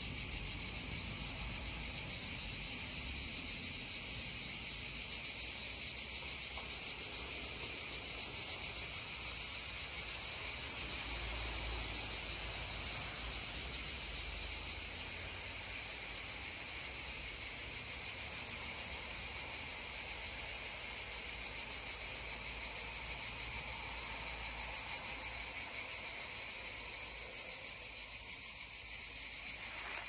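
Cicadas droning in a steady chorus, one continuous high-pitched buzz.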